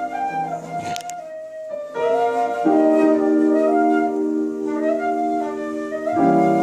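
A small hand-held flute-like wind instrument plays a wavering single-note melody line. About two and a half seconds in, sustained low piano chords join underneath.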